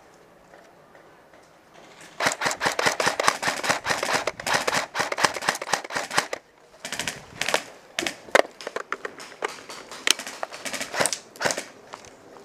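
Airsoft electric guns firing on full auto: a long rapid burst of sharp clacking shots starting about two seconds in, then after a brief pause several shorter bursts and single shots.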